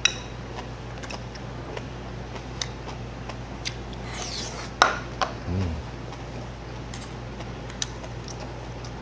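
Eating sounds: metal chopsticks clicking against a small bowl and the pot, a short slurp about four seconds in, and a brief "mm" hum of enjoyment just after. A steady low hum runs underneath.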